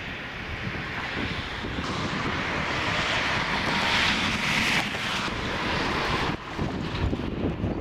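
Wind rumbling on the microphone, with the rising rush of a car passing on the road that swells for a few seconds; the sound drops off abruptly about six seconds in.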